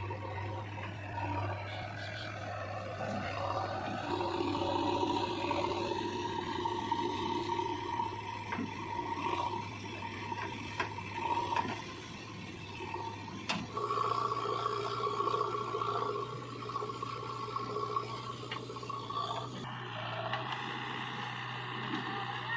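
JCB 3DX backhoe loader's diesel engine running under load with a steady low hum, over it a whine of the hydraulics that rises and shifts as the arm and bucket work. The whine changes abruptly about fourteen and twenty seconds in.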